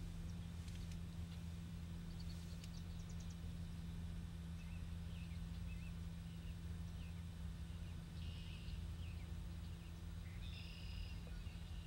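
Faint, short chirps and calls of small birds in the wetland, with a buzzier call about eight seconds in and another near the end, over a steady low hum.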